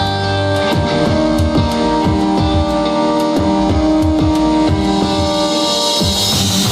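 Background music: a guitar and drum-kit track with a steady beat.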